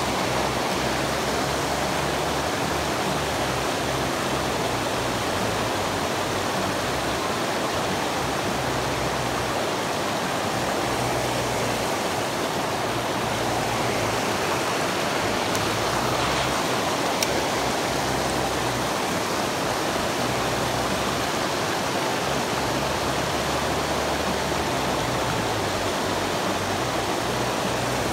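River water rushing steadily over a low stepped weir, a constant close wash of white water.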